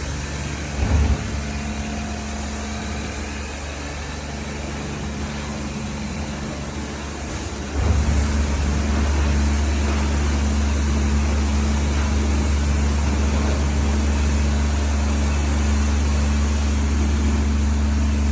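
Cordless battery foam sprayer's pump motor running with a steady hum, stepping up abruptly to a louder steady run about eight seconds in.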